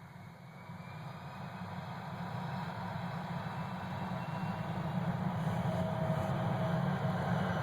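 Jet plane's engines at takeoff power, a steady rumbling rush that grows steadily louder.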